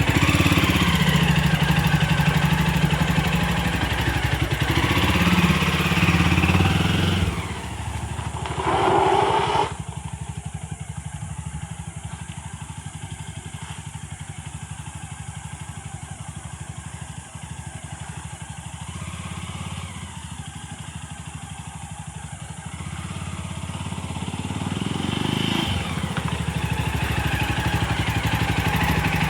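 Motorcycle engine running under way. It drops off about seven seconds in, with a brief loud noise as the bike slows, runs quieter for a long stretch, then rises again as the bike pulls away.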